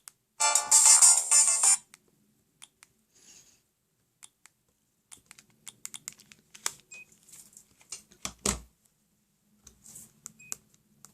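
Siemens SL55 mobile phone playing a short burst of a melodic ringtone through its speaker for about a second and a half before it stops. Then come scattered small clicks of the phone's keys and handling, with one louder knock past the middle.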